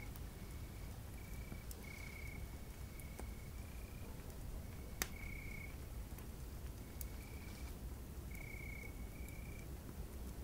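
Crickets trilling at night in short, steady high-pitched trills about a second apart, over a low steady rumble. Occasional sharp campfire crackles come through, with one louder pop about five seconds in.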